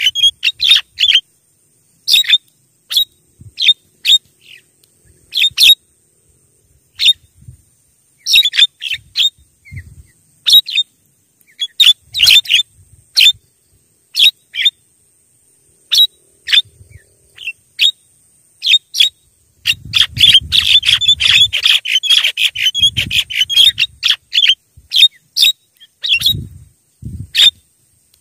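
Javan myna calls: short, sharp notes given singly or in quick runs, with irregular pauses between them. The calling thickens into a dense, rapid chatter about two-thirds of the way through.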